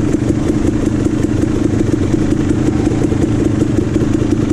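KTM 300 XC's single-cylinder two-stroke engine running steadily at low revs, with the fast, even crackle of its firing.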